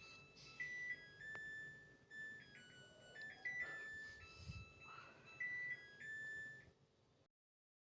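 A simple electronic melody of beeped pure tones stepping up and down in pitch, with a dull thud partway through. It cuts off abruptly near the end.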